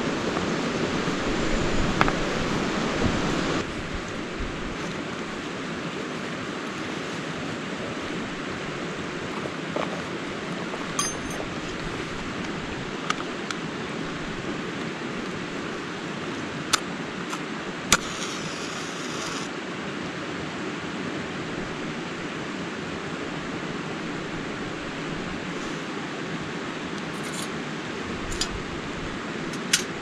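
A stream running steadily over rocks, louder for the first three or four seconds, with a few sharp clicks and clinks from a metal tin and camp stove being handled.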